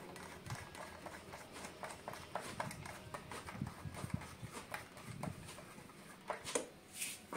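Irregular light clicks and taps, several a second, from a hard plastic motorcycle visor and a screwdriver being handled as the visor is pressed into place on the headlight cowl, with a few soft thuds in the middle and a brief hiss about seven seconds in.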